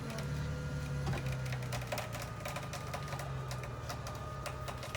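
Pickup truck engine running at low, steady revs under a scatter of irregular clicks and crackles as the truck drives through snow.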